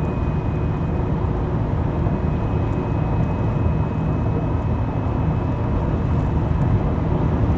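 Mitsubishi Zinger running with a steady low rumble and a faint, steady high-pitched whine that fades out about five seconds in. This is the abnormal noise the owner complains of, which the factory calls normal.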